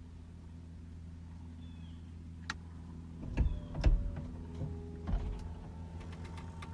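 A steady low motor hum that slowly grows louder, with several sharp clicks and thumps from about two and a half seconds in.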